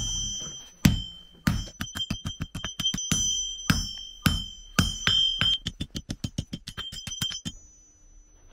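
Blacksmith's hammer striking a red-hot iron bar on an anvil while forging a horseshoe. The heavy blows are mixed with lighter taps, about three strikes a second, and each one rings high and metallic. The hammering stops about a second before the end.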